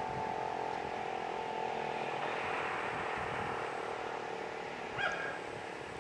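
Electromechanical fire-station siren sounding a steady wail that slowly fades, its upper tone dying away in the first couple of seconds as it winds down. A short click about five seconds in.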